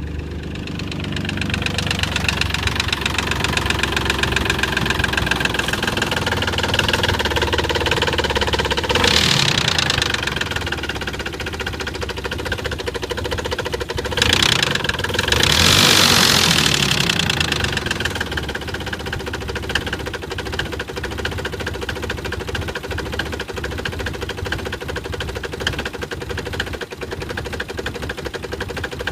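Nissan 300ZX V6 engine running with a knock, the fault the owner is showing. It is revved briefly twice, once about a third of the way in and again for a few seconds around the middle, then settles back to idle.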